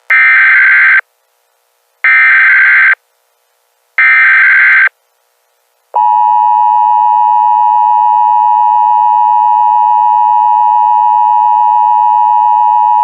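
Emergency Alert System tones: three one-second bursts of SAME header data about two seconds apart, then the steady two-tone EAS attention signal starts about six seconds in and holds.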